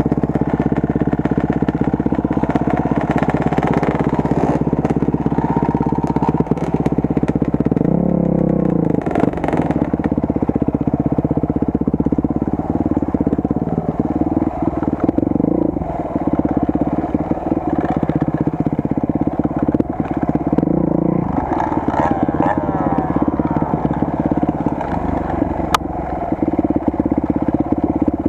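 Enduro motorcycle engine running steadily, its revs rising and falling a few times as the throttle is worked. One sharp click near the end.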